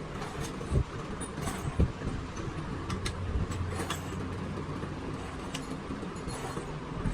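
Steady low mechanical hum of a running machine, with a few short sharp metallic clicks and taps over it.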